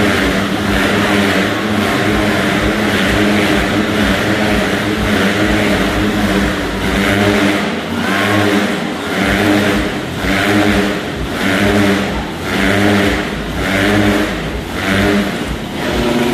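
Several motorcycle engines revving hard as the riders loop inside a steel globe of death. The engine sound swells and fades about once a second in the second half as the bikes circle past.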